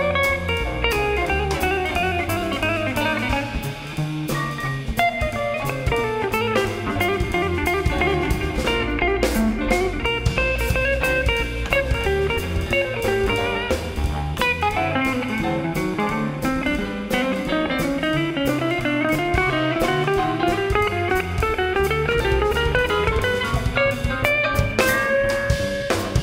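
Jazz guitar solo on a hollow-body archtop electric guitar, fast single-note runs rising and falling, over a rhythm section of piano, double bass and drums.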